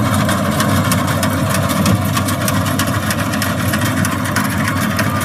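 Diesel engine of a rice harvesting machine running steadily, with a fast, irregular clatter on top.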